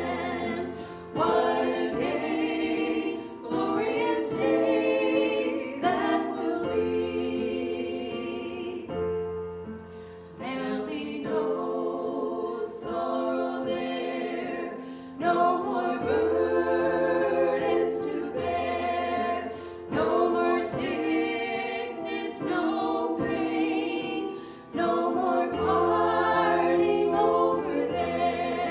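Several voices singing a worship song together over instrumental accompaniment, with a sustained low bass line that shifts to a new note every few seconds.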